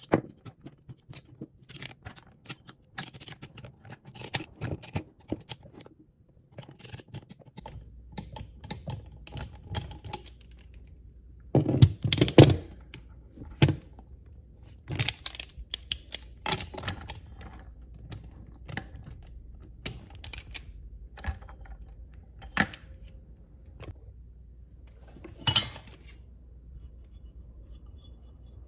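Hand tools and metal engine parts clicking, clinking and knocking at irregular intervals during work on a Suzuki FA50 moped engine, the loudest cluster of knocks about twelve seconds in. A steady low hum starts about a quarter of the way through.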